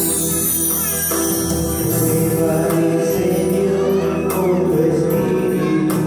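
Music: a choir singing a religious song at a rosary, with instrumental accompaniment and light jingling percussion.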